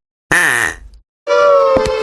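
Cartoon sound effects: a short growl-like burst that falls in pitch, then after a brief gap a loud held tone that sags slightly in pitch.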